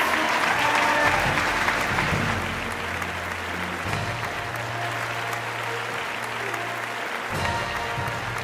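Audience applauding, heaviest over the first two seconds or so and then easing off, with background music and its held bass notes underneath.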